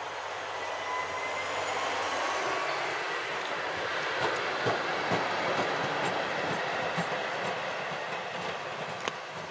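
ÖBB class 2070 diesel-hydraulic shunting locomotive running light past, its engine and running gear rising to a peak and fading as it goes by. A few clicks from the wheels over rail joints come near the middle, and a faint high wheel squeal sounds in the first few seconds.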